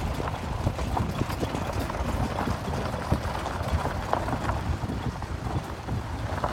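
Open safari jeep driving along a rough dirt forest track: a steady low rumble with frequent irregular knocks and rattles as the vehicle bumps over the ground.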